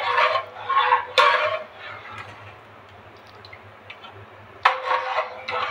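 Perforated steel ladle scraping and clinking against the bottom of an aluminium pot while stirring milk and ground rice to keep lumps from forming. The scraping comes in two spells, with a quieter stretch of faint steady hiss between them.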